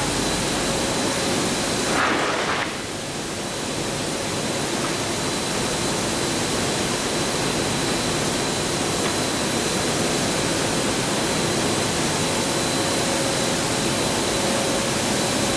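Steady machinery noise of a coil car mat production line: an even hiss with a thin high whine and a fainter mid-pitched hum running through it. A short louder rush comes about two seconds in, then the level dips briefly.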